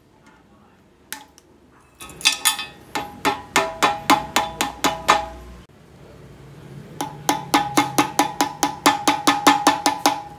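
Hammer tapping on metal while the cut ends of a twisted-wire hose clamp are knocked down against the hose. First comes a run of quick strikes, about three a second, each with a short metallic ring. After a brief break there is a faster run of about five a second with a higher ring.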